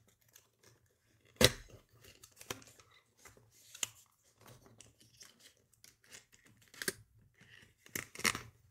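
Small cardboard box and packaging being handled as a power supply and its cable are pulled out: scraping and rustling with scattered knocks, the sharpest about a second and a half in.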